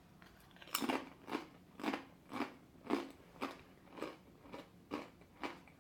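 A person biting into a crunchy potato chip about a second in, then chewing it with steady crunches about twice a second.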